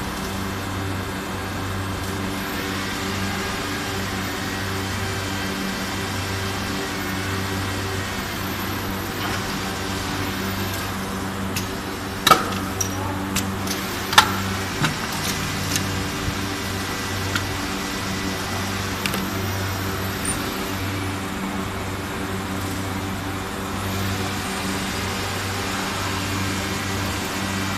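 Two-colour plastic injection moulding machine running with a steady hum. About 12 and 14 seconds in come two sharp metallic clacks as the mould opens to eject the moulded plier handles, followed by a few lighter clicks.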